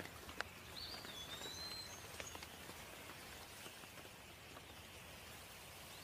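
Faint, steady rain hiss with scattered sharp drips, and a bird whistling one gliding call about a second in.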